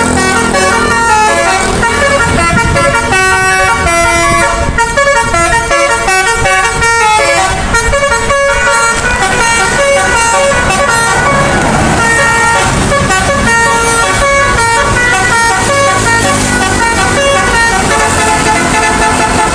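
A bus's Basuri musical air horn playing a continuous, fast tune of changing notes, with a low rumble from the vehicle underneath.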